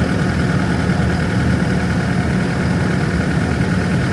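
Toyota Hilux engine idling steadily just after a cold start on a frosty morning, warming up.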